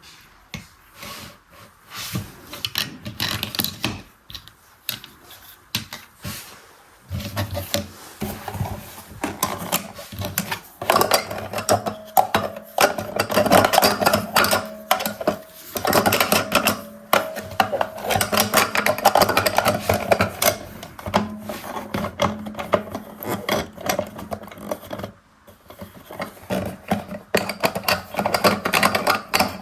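Plastic mini toy washing machine being worked by hand, with rapid clicking and rattling. The clicks are sparse at first, then turn into a dense, continuous clatter with a steady hum underneath from about seven seconds in, pausing briefly near the end.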